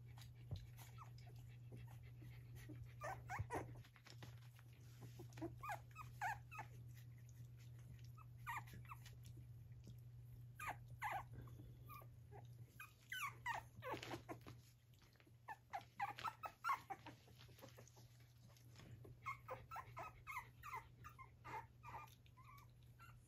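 Australian terrier puppies about three and a half weeks old squeaking and whining in scattered bunches of short, high yips.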